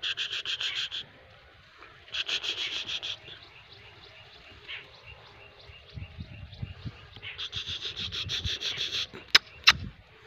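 A dog scratching: quick, even scratching strokes, about ten a second, in three bursts of about a second each, with two sharp clicks near the end.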